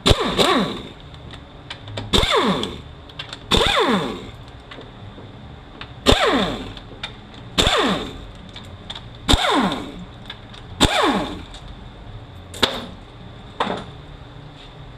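A handheld power tool with an 8 mm socket backing out the 5-45RFE transmission's valve body bolts one after another. Each run starts with a sharp click and then a whine that falls in pitch, about every one and a half to two seconds. The last two runs near the end are shorter.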